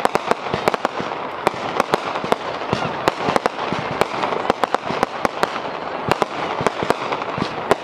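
Fireworks display: a rapid, irregular string of sharp bangs, several a second, from aerial shells bursting, over continuous crackling.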